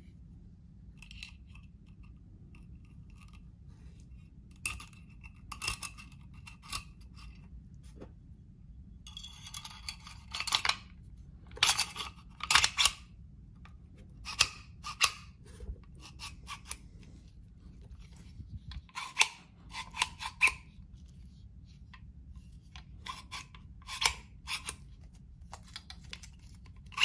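Metal clicks and clinks of a Bersa Thunder .22 LR pistol's slide and frame being handled and fitted back together, some clicks with a short metallic ring. A longer scraping sound comes about nine seconds in.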